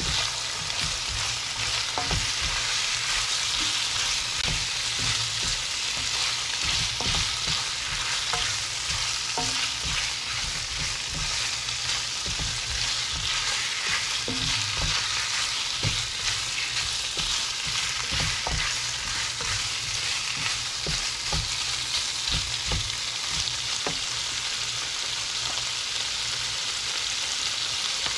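Chicken gizzards sizzling as they sauté in a nonstick pan: a steady frying hiss, with irregular soft knocks and scrapes as a silicone spatula stirs them.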